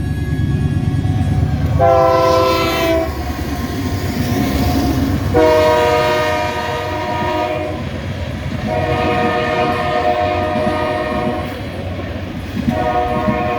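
Train horn sounding a chord of several notes in four separate blasts, over the low rumble of a moving train. The second and third blasts are longer than the first.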